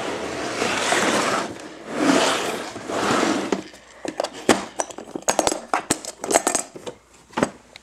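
A plastic toolbox organizer being handled: scraping and rustling for the first few seconds, then a run of sharp clicks as its metal latches are flipped open.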